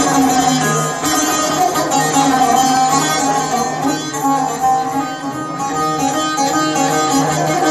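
Azerbaijani saz, a long-necked lute, played with a plectrum: a fast plucked melody over steady sustained low notes, with no singing.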